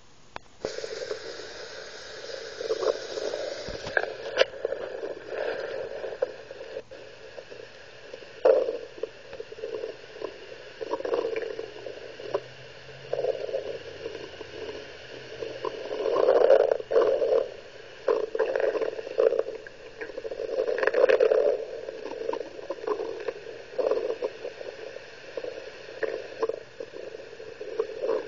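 Stomach gurgling picked up by an ultrasound probe on the belly: irregular squelching gurgles over a steady device hiss. The gurgles swell loudest around 8, 16 and 21 seconds in.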